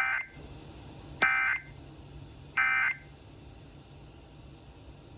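Emergency Alert System SAME data tones: three short bursts of buzzing two-tone data, about 1.3 seconds apart. This is the End of Message code that closes an EAS alert broadcast.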